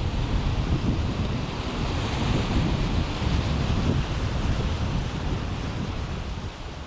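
Wind buffeting the microphone in gusts over a steady rush of water, fading near the end.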